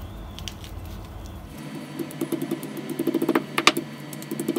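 Stone hand-muller on a flat sil batta grinding stone crushing garlic with salt and red chili: a low rubbing sound at first, then from about a second and a half in, rapid repeated knocks of stone on stone as the garlic is pounded into a paste.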